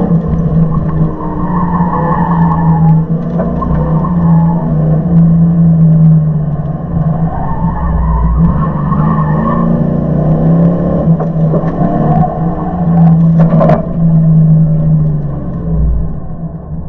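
A 1999 Dodge Dakota R/T's 5.9-litre V8 working hard through an autocross run, its pitch rising and falling as the driver accelerates and lifts, with tyres squealing at times. There is a short sharp noise about three-quarters of the way through.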